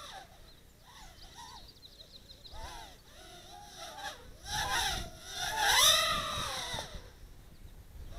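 Micro quadcopter's 1103 brushless motors and props whining in flight, the pitch swinging up and down as the throttle is punched and let off. Faint at first, loudest around five to six seconds in.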